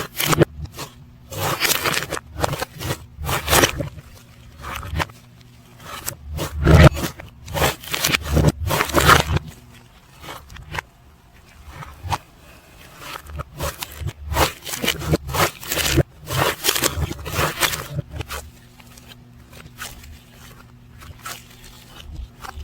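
Slime being squished and kneaded by hand, a dense run of irregular sticky clicks and popping air pockets, heard in reverse playback. It comes in louder bursts, with quieter stretches near the middle and toward the end.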